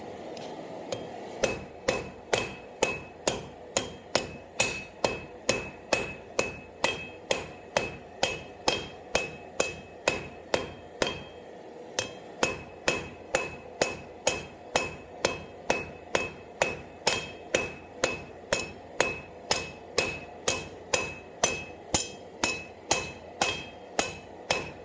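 Ball-peen hammer striking a hot square steel bar on an anvil, rounding off the corners of a taper. The blows come in a steady rhythm of a little over two a second, each with a short metallic ring. They begin about a second and a half in and break off briefly around halfway.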